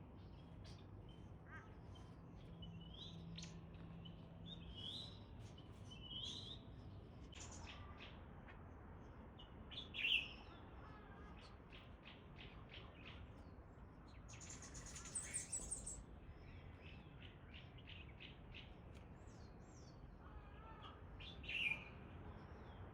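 Birds chirping and calling: a run of short, high chips and chirps, with two louder calls about ten seconds in and near the end, and a brief buzzy trill around the middle.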